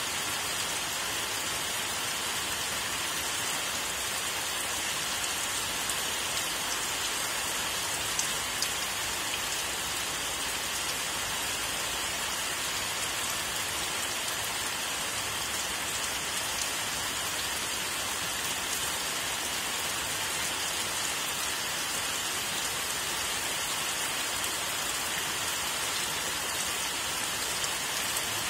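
Steady rain falling on leafy trees: an even hiss with no change in strength, broken only by two brief louder drop ticks about eight seconds in.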